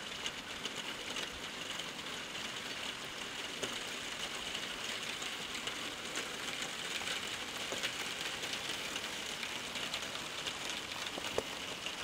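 Steady outdoor hiss on the camera microphone, scattered with many faint irregular ticks and clicks.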